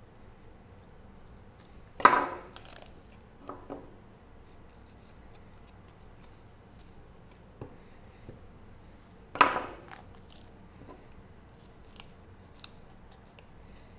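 Knocks and clatter from deboning a whole chicken on a cutting board: two sharp clacks about seven seconds apart, each ringing briefly, with a few softer taps and clicks between.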